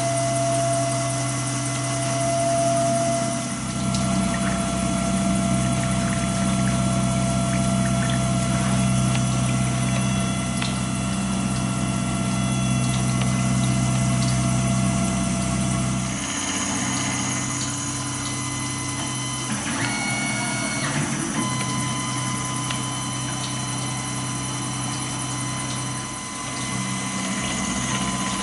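Tormach 770 CNC mill running, its end mill cutting a Glock 35 slide under flood coolant. A steady spindle whine and machine hum mix with the coolant pump and splashing, and the sound shifts abruptly a few times.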